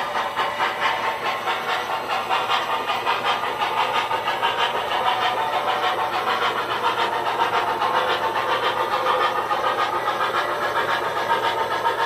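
O gauge model train cars rolling past on three-rail track, with a steady rumble and rapid clicking of the wheels over the rail joints.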